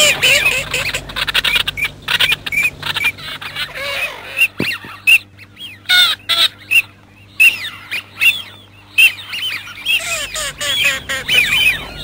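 Eurasian wigeon calling: a flock's many short whistles in quick succession, thinning to a few scattered calls in the middle and picking up again near the end.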